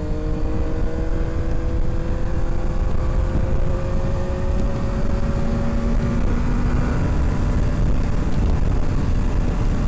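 Superbike on its stock exhaust cruising, its engine note a steady hum that slowly rises in pitch over the first several seconds. A heavy low rush of wind runs underneath it.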